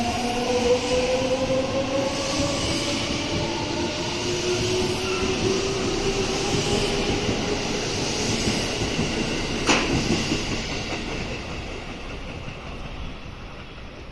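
Electric commuter train pulling out of the station and accelerating away, its motors giving a slowly rising whine over the rumble of the wheels. A single sharp clack comes about ten seconds in, then the sound fades as the train leaves.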